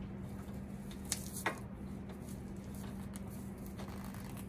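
Light handling noises from working a stripped cable by hand: two short clicks in quick succession a little after a second in, over a steady low hum.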